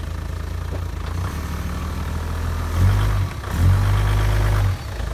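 Truck engine idling, then revving up twice, briefly about three seconds in and longer just after, as the truck creeps forward onto a board pressing down on a trailer tire's sidewall to break the bead.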